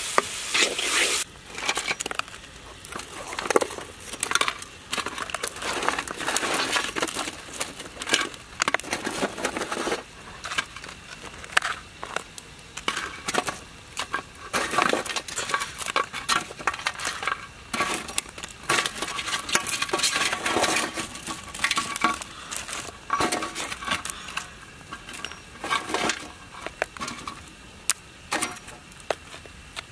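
Irregular clinks, knocks and crunches of cooking and of handling crisp fried food: a wooden spatula working in a pan, then pieces of deep-fried crocodile being handled on a wooden plate.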